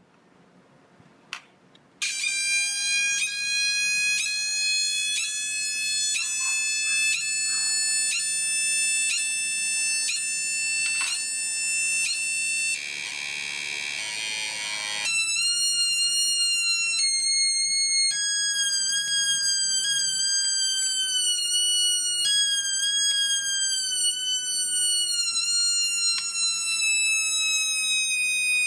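Home-built analog sound-effects generator, made of BC547 transistor astable multivibrators, sounding a harsh electronic buzzing tone like an alarm. After a few clicks, the tone starts about two seconds in and pulses on and off at an even pace, its pitch slowly rising. It turns to a noisy buzz for a couple of seconds midway, then wavers and jumps in pitch several times as the switches and potentiometers are changed, drifting lower near the end.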